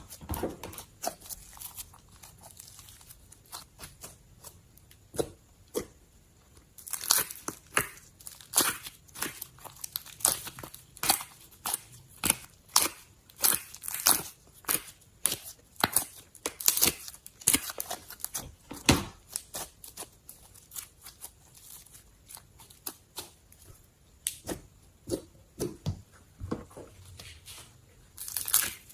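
Slime being squeezed and stretched by hand, giving a quick, irregular run of sharp pops and crackling squishes as air pockets burst. It starts sparse and quieter, then grows much busier and louder about a quarter of the way in.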